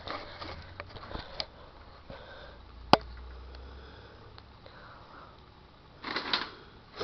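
Close sniffing near the microphone, with a sharp click about three seconds in and a low rumble of handling noise just after it.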